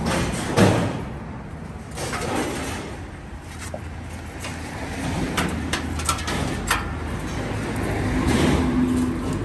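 Street traffic: a steady low rumble of passing vehicles, with an engine hum swelling near the end. A sharp knock about half a second in and a few short clicks in the middle.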